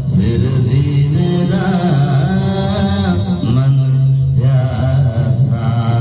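A man singing an old film song into a handheld microphone, holding long notes that slide slowly in pitch.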